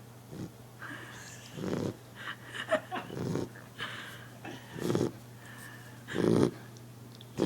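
A sleeping puppy snoring loudly, with a snore about every second and a half.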